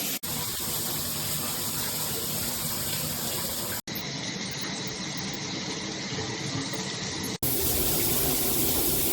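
Water spraying steadily from a Yurnomy 8-inch shower head. The sound cuts out for an instant three times and comes back with a slightly different tone each time.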